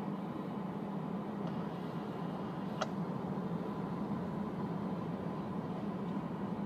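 CSX freight train passing close by, its diesel locomotives and then covered hopper cars making a steady rumble, with one sharp click about three seconds in.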